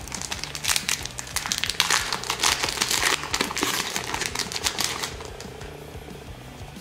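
Foil wrapper of a trading-card booster pack crinkling and tearing as it is pulled open by hand: a dense run of crackles for about five seconds, fading away near the end.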